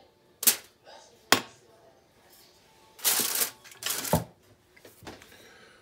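Kitchen handling noises on a glass-top stove: two sharp clicks about half a second and a second and a half in, then two short rustling scrapes around three to four seconds in as the foil-covered frying pan is shifted.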